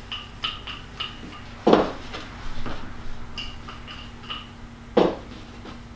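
Shortcrust pastry being rolled out with a wooden rolling pin on a wooden worktop: a run of light clicks from the pin as it rolls, and two louder knocks, about two seconds in and again about five seconds in.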